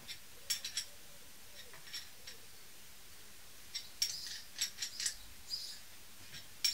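Light metallic clicks and ticks in a few short clusters: a small wrench working the clamp bolts of a hand brake-pipe flaring tool as they are tightened.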